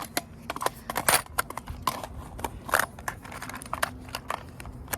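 Irregular clicks and clatter of small hard objects being handled and dropped back into a chest.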